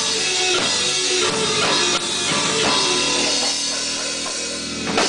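Live heavy rock band playing: distorted electric guitar, bass guitar and drum kit, with a sharp drum hit near the end.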